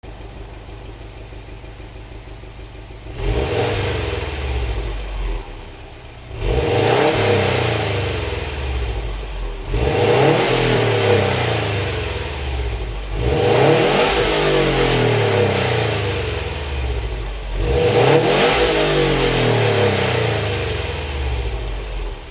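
Turbocharged 2.5-litre flat-four boxer engine of a 2013 Subaru WRX STI idling, then revved five times in a row, each rev rising quickly and falling back slowly before it settles to idle near the end.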